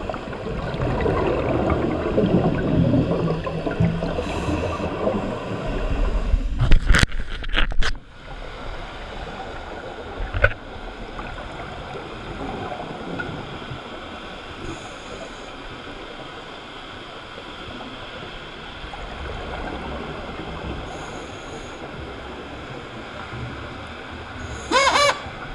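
Underwater sound of scuba divers' exhaled regulator bubbles, gurgling loudly for the first several seconds with a few sharp knocks, probably handling of the camera housing, then settling to a quieter steady wash. A short run of rising chirps comes near the end.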